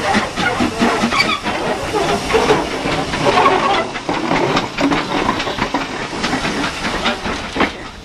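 Steam locomotive working close by: a steady hiss of escaping steam with a run of sharp exhaust beats, about three or four a second at first and more irregular later.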